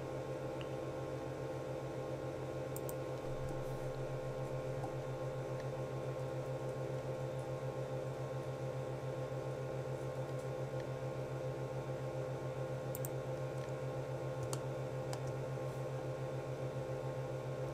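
Steady low electrical hum with a fast, even flutter, and a few faint clicks of computer keys or mouse buttons scattered through it.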